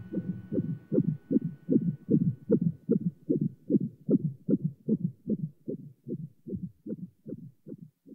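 Fetal heartbeat heard through an ultrasound Doppler monitor: a quick, even run of pulses about two and a half a second, fading away near the end.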